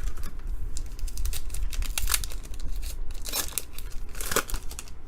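Trading-card pack wrapper crinkling and being torn open, with crackling bursts about two, three and a half and four and a half seconds in.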